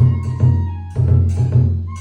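Kagura music played live: deep taiko drum strikes in a quick pattern, with a strong accent at the start and another about a second in, and a high flute line held over them.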